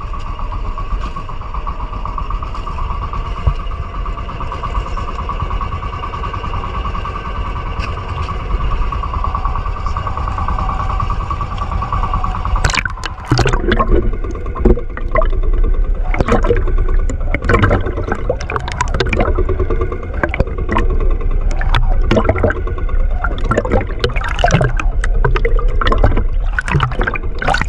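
A small fishing boat's engine drones steadily with a low rumble. About halfway in, a run of irregular knocks and splashing sounds starts over it and keeps going.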